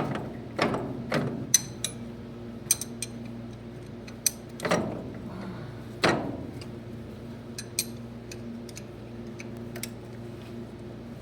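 Hand tools working on the metal parts of a tractor clutch: a few sharp, ringing metal knocks in the first half, then scattered light clicks, as bolts are snugged and a collar is locked into place. A steady low hum runs underneath.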